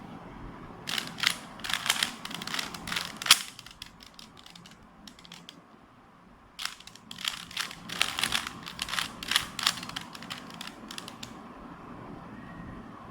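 Plastic Rubik's cube being twisted by hand: quick runs of clicking and rattling turns, in two flurries with a pause of a few seconds between them.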